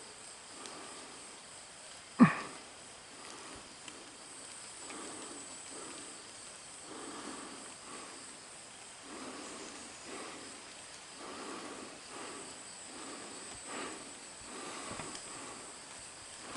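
Slow footsteps on a mountain trail, one soft step about every second and a half, with a faint steady high insect trill behind. One sharp knock about two seconds in.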